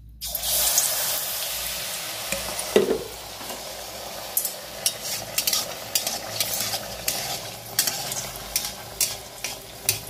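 Semolina pitha batter dropped into hot oil in a kadai: a sudden loud sizzle that settles into a steady frying hiss. From about four seconds in, sharp crackles come about twice a second.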